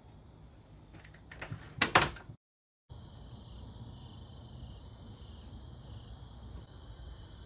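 A few knocks and clatters, the loudest about two seconds in. After a cut, a steady high chorus of night insects runs over a low rumble.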